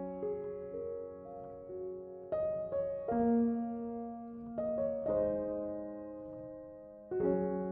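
Slow, gentle piano background music: chords and single notes struck every second or two and left to ring and fade.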